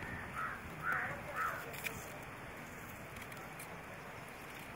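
A crow cawing three times, about half a second apart, over a steady outdoor background hiss; a single sharp click follows a moment later.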